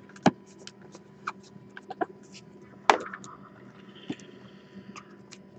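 Foil trading-card pack being handled and torn open: short, sharp crinkles of the foil wrapper, loudest about a third of a second in and again near three seconds, with a few softer ones between, over a faint steady hum.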